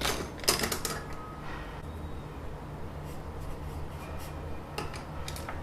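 Pen scratching on paper in a few short strokes, writing down a measurement, with a faint steady low hum underneath.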